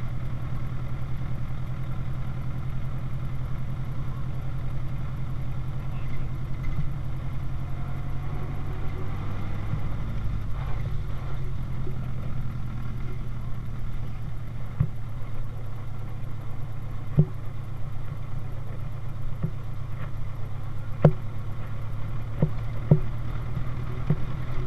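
1931 Ford Speedster's four-cylinder engine running steadily at low road speed, a low even throb. A few sharp knocks come from the car in the second half.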